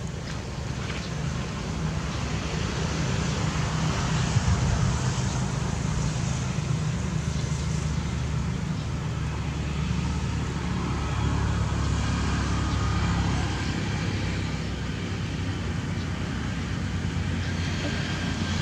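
Steady low engine hum with an even hiss over it.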